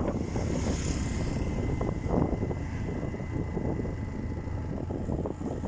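Wind buffeting the microphone of a camera riding on a moving vehicle, a steady low rumble with ragged gusts, mixed with the vehicle's road and engine noise.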